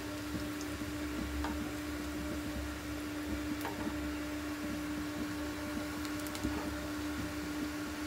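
Breaded chicken donuts deep-frying in hot ghee, sizzling with a few sharp pops, under a steady mechanical hum.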